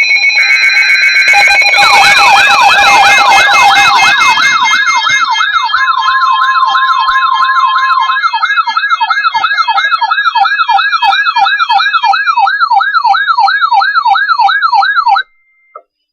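Electronic siren-style alert tones: several overlapping yelps sweeping quickly up and down, about two to three cycles a second, over steady beeping tones. They stop abruptly near the end.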